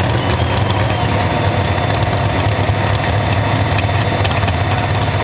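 Pro stock 4x4 pulling truck's engine idling steadily after its pull.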